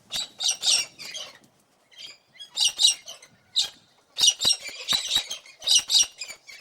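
An animal giving short, high-pitched squawking calls in quick clusters, with brief pauses between the groups.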